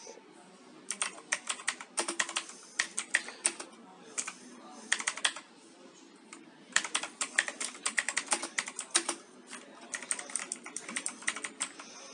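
Typing on an INCA IKG-441 Empousa mechanical keyboard with Blue switches: quick runs of sharp, clicky keystrokes with short pauses between them, sounding like standard Blue switches with a typewriter-like clatter.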